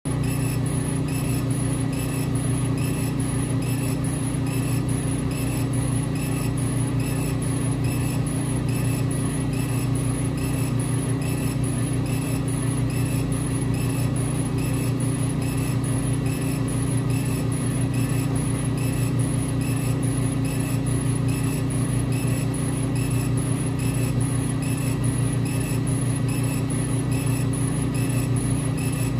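Epilog Fusion M2 40 CO2 laser cutter raster-engraving wood: a steady loud hum of its fans and exhaust, with a faint regular pulse repeating about one and a half times a second as the laser head sweeps back and forth.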